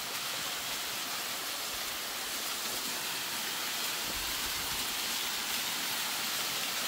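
A small waterfall splashing onto rocks and into a shallow pool: a steady rush of falling water that grows slightly louder toward the end.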